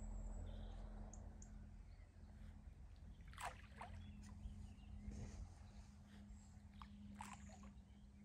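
Faint outdoor ambience: a low rumble of wind on the microphone and a steady low hum, with a few brief faint ticks about three and a half and seven seconds in.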